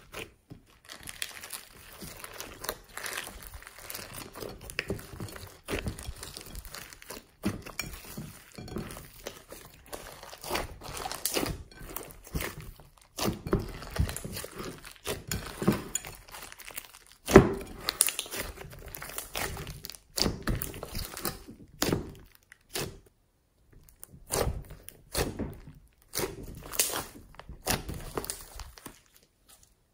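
Hands squeezing, pressing and stretching a large mass of glossy slime mixed with floam beads: irregular squelches, crackles and pops, one pop louder than the rest a little past halfway.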